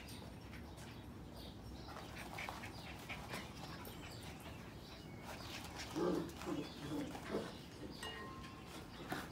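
Sheepadoodle puppies play-fighting: light scuffling and scattered clicks, then from about six seconds in a handful of short puppy yips.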